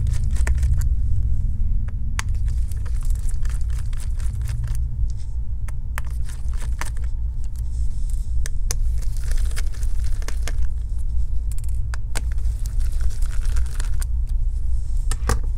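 Small clicks and rustling as a PH1 Phillips screwdriver backs out the laptop battery's screws and gloved hands handle the parts, over a steady low rumble.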